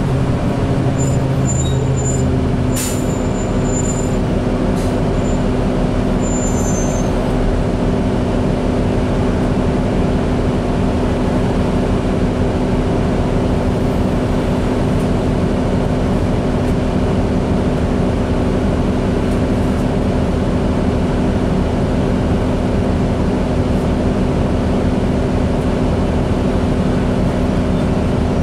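Interior sound of a 2008 New Flyer D40LFR diesel transit bus under way: a steady engine and drivetrain drone with road noise, heard from inside the passenger cabin. A sharp click comes about three seconds in, and a few short high tones sound in the first seven seconds.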